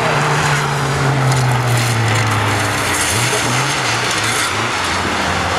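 Racing saloon car's engine, likely a Mk1 Ford Escort's, holding a steady note, then wavering up and down about three seconds in as the car spins off the track into a gravel trap. A rough hiss of gravel spraying from the sliding tyres runs through the middle.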